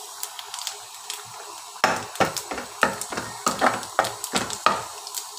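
A steel spoon knocking and scraping against a metal pan while stirring a tadka of browned onions and cumin in ghee, over a steady sizzle. The knocks start about two seconds in, irregular, two or three a second.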